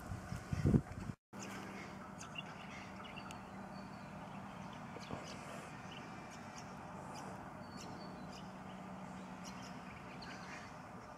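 Quiet outdoor background with a steady low hum and faint scattered high ticks and chirps. A short low bump comes in the first second, and the sound cuts out completely for a moment just after.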